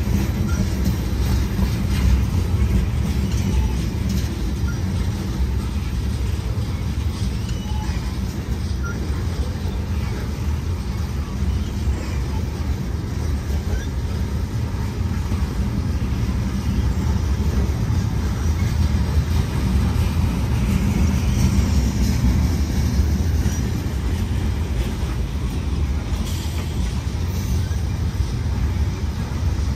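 Freight train cars rolling past close by: a steady low rumble of steel wheels on the rails.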